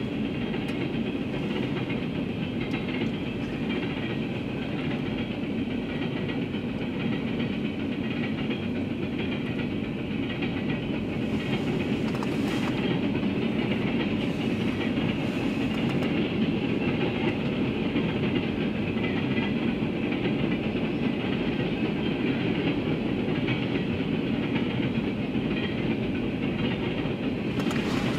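Norfolk Southern coal train's freight cars rolling past in a steady, continuous run of rail noise, a little louder in the second half.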